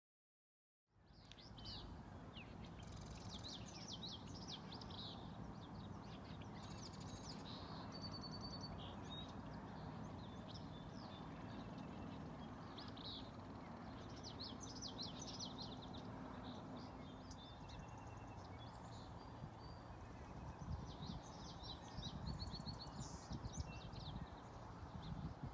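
Several small songbirds singing and calling in a marsh-side chorus of quick chirps, trills and buzzy phrases over a steady low outdoor background. Low rumbling bumps come in near the end.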